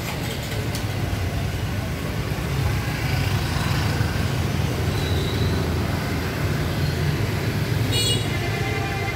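Motorbike engines and street traffic: a steady low rumble, with a short high-pitched squeal near the end.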